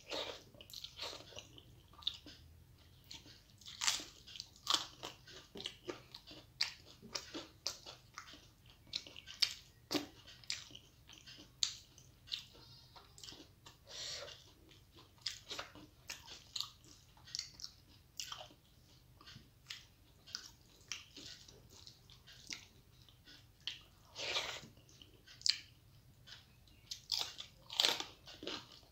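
Close-miked chewing of rice and dal eaten by hand: wet mouth clicks and smacks, irregular, a few each second.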